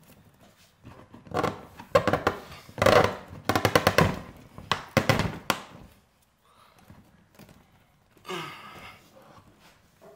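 Split spruce root lacing being pulled through holes in birch bark: a run of rasping, crackling scrapes in quick bursts over about four seconds, then a single shorter rasp a few seconds later.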